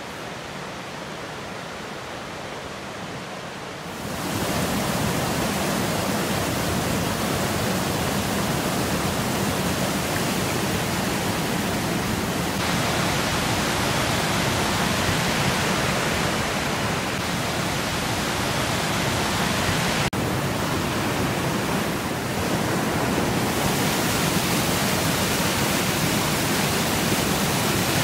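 Rushing water of a rocky mountain creek running over boulders: a steady rush that steps up in loudness about four seconds in and shifts slightly a few more times.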